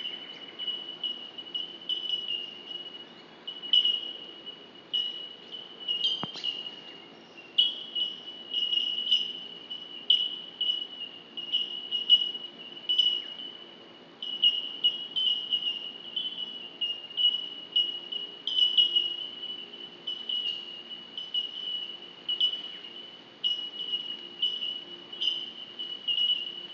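Insects chirping: a steady high trill broken into short pulses about twice a second, with a faint low hum beneath. A single sharp click comes about six seconds in.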